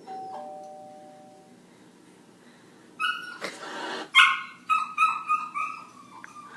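A two-note ding-dong doorbell chime, then about three seconds later a dog barking six or so times in quick succession in reaction to it.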